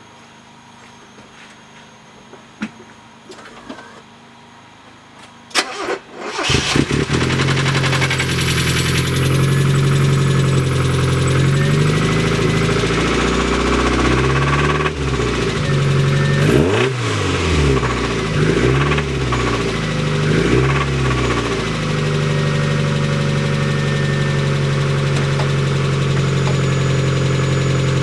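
A couple of sharp clicks, then a Mazda Miata 1.6-litre four-cylinder engine starts about six seconds in and idles. It is revved up and down several times before settling back to a steady idle. It runs with the knock of a failed rod bearing.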